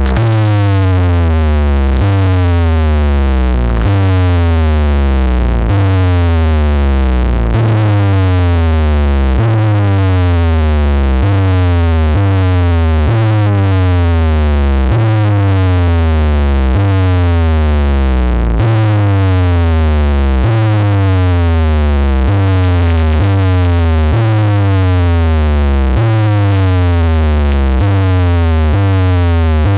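Loud electronic speaker-check music played through a DJ sound system: falling synth sweeps repeat over and over above a deep bass line that steps from note to note.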